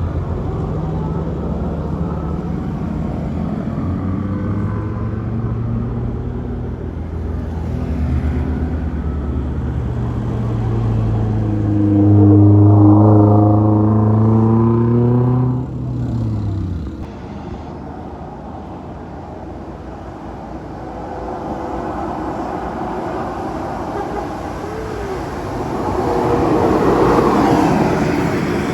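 Bus engine running steadily, then revving up with a rising pitch about halfway through and dropping away sharply a few seconds later. A rushing vehicle noise follows and swells near the end.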